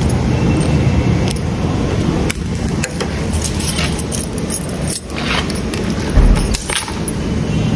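Keys and a metal lock jangling and clinking as they are handled at a motorcycle, a scatter of sharp clicks over rumbling handling noise. There is one heavy thump about six seconds in.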